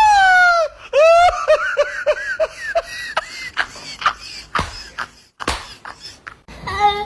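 A person's voice: a long high cry that falls in pitch at the start, then a quick string of short laughs, followed by scattered sharp knocks and clicks. Laughter and voices return near the end.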